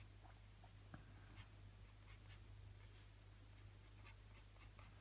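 Faint scratching of a wooden graphite pencil on paper, in a run of short, irregular sketching strokes, over a low steady electrical hum.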